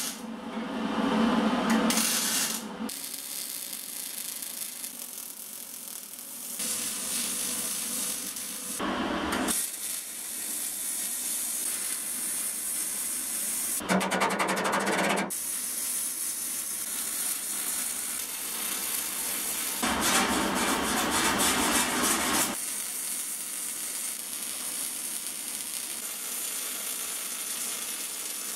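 MIG welding on sheet steel: the arc crackles and hisses in several runs, stopping and starting again a number of times.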